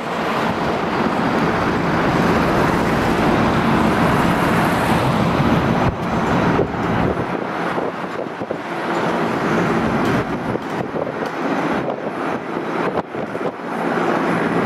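Mi-8-family helicopter flying low overhead: a loud, steady rush of rotor and turbine noise with a continuous low hum, its deepest rumble thinning out about halfway through.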